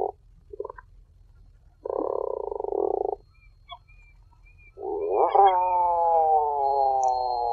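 Tufted puffin calling in low, growling notes: a short call, two brief notes, a rough call of about a second and a half, then a long moaning call of nearly three seconds that slowly falls in pitch. A faint low rumble runs underneath.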